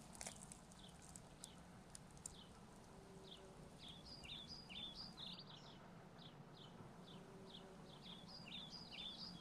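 Faint small-bird calls: short, falling chirps repeated many times, coming thicker from about four seconds in and again near the end. A few sharp clicks come in the first two seconds.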